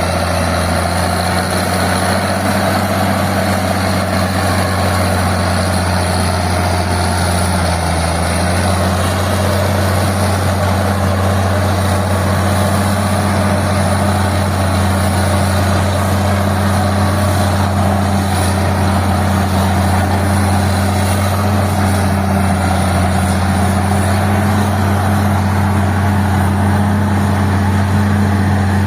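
Old Caterpillar D6 crawler tractor's diesel engine running steadily with a deep rumble. Its note dips briefly about eight seconds in, then settles a little higher.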